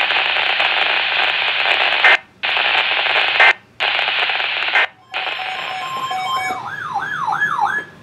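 NOAA Weather Radio emergency alert over a handheld radio's speaker: the raspy, buzzing data bursts of a SAME alert header, three in a row with short gaps. About five seconds in they give way to quieter alert tones and a warbling alarm tone sweeping up and down about four times a second.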